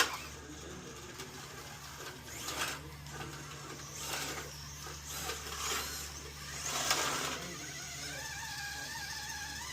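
A sharp click, then a radio-controlled scale crawler's small electric motor and gear train whirring in four short bursts as it is driven in stops and starts, settling into a steadier whine near the end.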